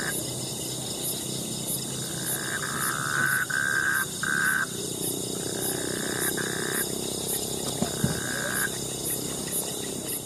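Night chorus of insects and frogs: a steady high-pitched trilling with a regular pulse, and a lower call that comes and goes in spells of one to two seconds.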